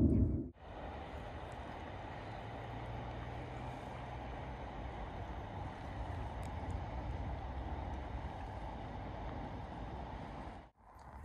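Steady wind and water noise on a river, an even hiss with no distinct events; it starts abruptly about half a second in and cuts off abruptly near the end.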